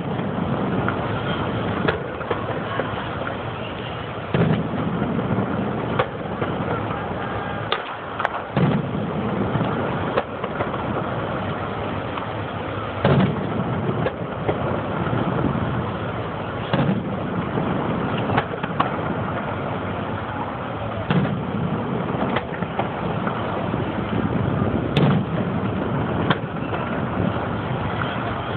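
Fireworks display: aerial shells bursting in irregular booms every one to four seconds over a steady din of launches and crackle.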